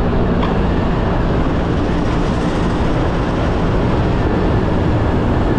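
Riding noise from a Yamaha Aerox scooter under way: wind rushing over the action camera's microphone, with engine and road noise underneath, steady throughout.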